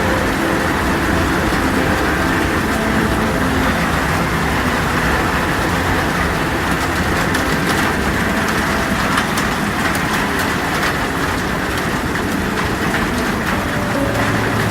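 Steady heavy rain on a metal roof, scattered drops ticking, over a continuous low rumble of storm wind.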